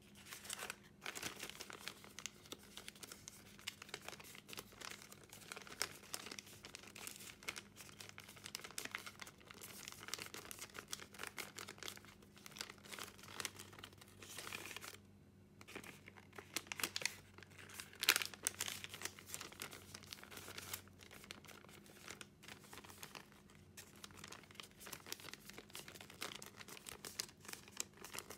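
A large sheet of origami paper, folded into many layers, being handled and folded by hand: continual rustling and crinkling as it is shaped and creased. There is a brief pause a little past the middle and one sharper crackle soon after.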